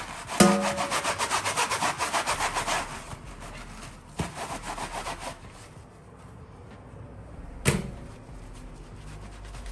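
A scouring sponge scrubbed rapidly back and forth on a hard kitchen surface in quick, rhythmic strokes. The scrubbing stops about three seconds in and comes back briefly around four seconds. A sharp, ringing metallic clank comes just after the start, and another knock comes near the end.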